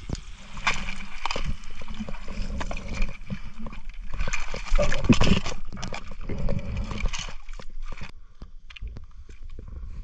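Sea water sloshing and gurgling as a diver hauls himself out of the water onto a concrete tetrapod, with irregular knocks and scrapes; the loudest splash comes about halfway through.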